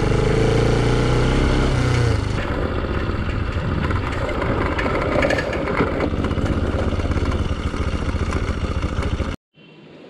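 Motorcycle engine running while riding over a rough dirt and gravel track, with wind and road rumble. The sound changes about two seconds in and cuts off abruptly near the end.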